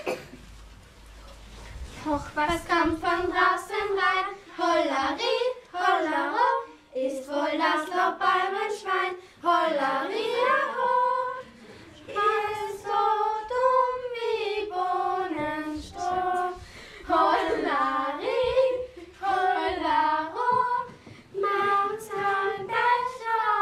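Young girls' voices singing a song together, with no instruments heard, in phrases broken by short pauses. The singing starts about two seconds in.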